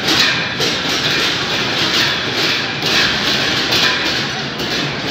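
Din of a packed street-festival crowd, with a steady rhythmic clash of percussion at roughly two beats a second.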